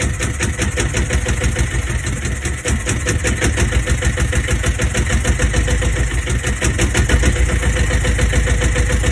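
Bukh DV8 single-cylinder marine diesel running in forward gear, with a steady, rapid knocking beat that grows somewhat louder from about three seconds in.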